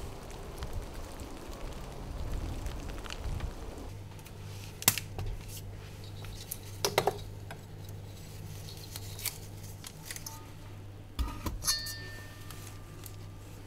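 Kitchenware being handled at a stainless steel sink: a few sharp knocks and clinks. A steady low hum starts about four seconds in, after a soft rushing noise at the start.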